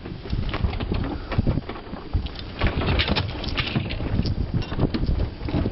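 Wind buffeting the microphone aboard a small sailboat under sail: an uneven low rush with frequent gusty peaks and no engine running.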